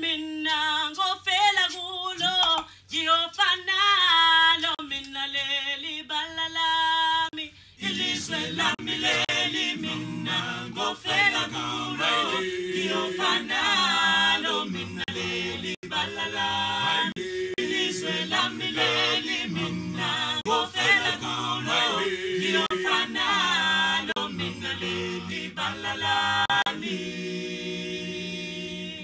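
A small vocal group singing a cappella: one voice sings alone for the first several seconds, then the whole group comes in with harmony, low voices included, about eight seconds in.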